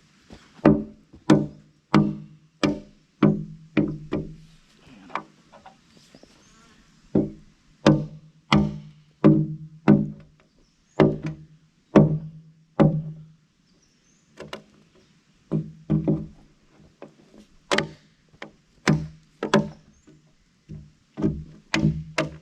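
Background music: a steady run of plucked string notes, like a guitar riff, about one to two notes a second.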